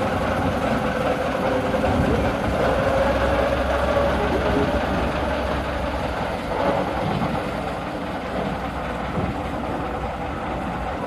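Diesel shunting locomotive engine running steadily at low revs, growing gradually fainter.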